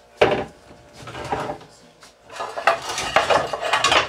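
Kitchenware being handled: a sharp knock about a quarter second in, then a run of clattering clinks and knocks of dishes and pans in the last two seconds.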